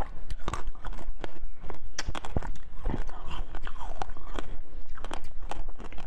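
Close-up sounds of a person chewing food, picked up on a lapel microphone: a quick string of sharp mouth clicks several times a second.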